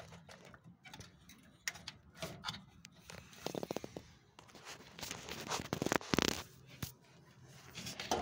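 Handling noise from hands working inside a gas water heater's casing: scattered clicks and scraping, a quick rattling run of strokes about three and a half seconds in, and a louder rough rustle around five to six seconds in.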